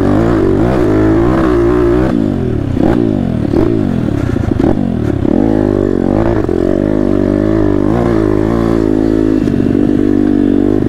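Pitbike engine revving up and down over and over as it is ridden along a dirt track, its pitch rising and falling with each burst of throttle and shift.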